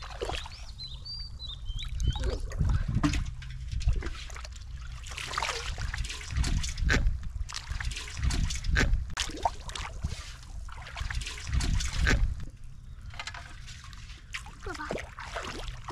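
Pond water splashing and sloshing in irregular bursts, with trickling, as people wade and grope in it for fish by hand.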